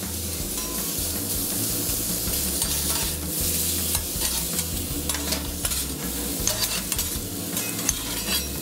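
Venison strips and vegetables sizzling on a steel flat-top griddle, with metal spatulas scraping and clicking against the plate as the stir-fry is turned.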